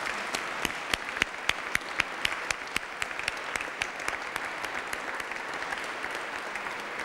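Audience applauding, with a few louder claps close by standing out in an even rhythm of about three to four a second during the first few seconds.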